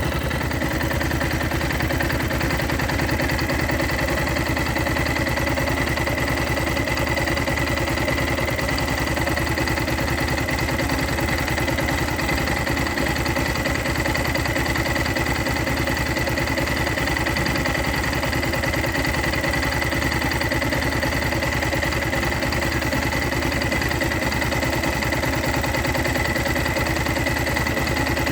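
Yamaha Ténéré 660's single-cylinder four-stroke engine idling steadily, with a steady high whine over the even beat of its firing. The bike has just been reassembled after standing for years, and the owner is showing a noise in its engine.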